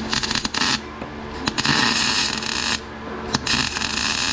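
MIG welder arc crackling in three bursts of about a second each as tack welds are laid on rusty mower-deck steel. The rust makes the arc pop and sputter.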